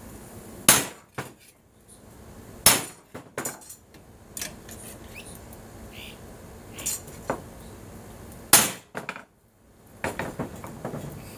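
Sharp metal strikes and clinks on an aluminum brace being bent into shape: three loud blows, one just under a second in, one near three seconds and one near the end, with lighter knocks and clinks between them.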